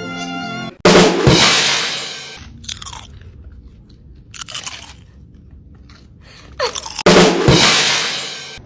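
Two loud crashes about six seconds apart, each dying away over a second or so, with a few softer rustling noises between them.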